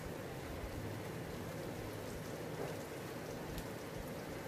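Steady, even hiss, with a few faint light clicks from a steel spoon against the steel plate and syrup bowl as sugar syrup is spooned on.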